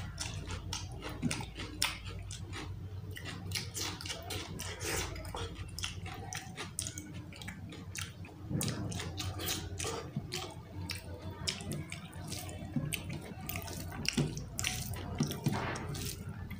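Close-miked wet eating sounds from eating rice and chicken skin curry by hand: the fingers squelch through curry-soaked rice on the plate, with mouth smacking and chewing, made up of many small, irregular wet clicks. A steady low hum runs underneath.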